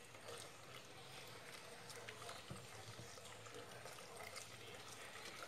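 Faint sounds of water being poured from a jug into flour while a whisk stirs the batter in a stainless steel bowl, with a few light clicks.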